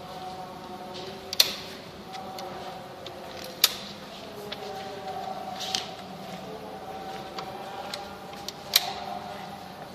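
Sharp clicks and light taps of plastic and metal parts of a Canon copier drum unit's end bracket being handled and fitted, four louder clicks a couple of seconds apart among softer ticks, over a faint steady hum.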